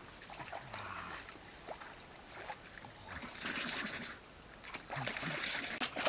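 Shallow stream water splashing and sloshing as a person wades and scoops and slaps at it with his hands, in irregular bursts that are loudest a little past halfway and again near the end.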